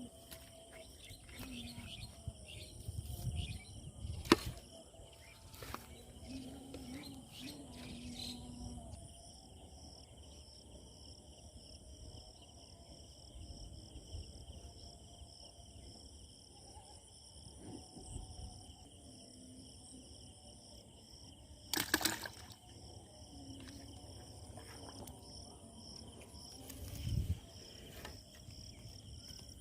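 Steady chorus of insects shrilling in several high, unbroken tones, with scattered low knocks and a sharp click about four seconds in and a louder one about twenty-two seconds in.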